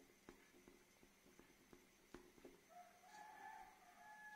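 Faint ticks and scratches of a ballpoint pen writing numbers on a paper form. About two and a half seconds in, a faint rooster crow lasts about two seconds.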